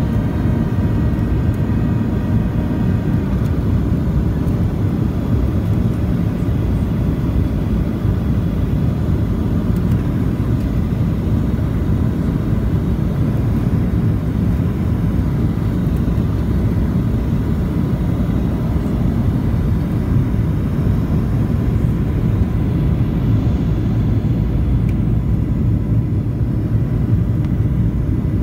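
Boeing 737 cabin noise heard from inside at a window seat during the landing approach: a steady low rumble of the twin jet engines and the airflow over the wing, with its flaps extended.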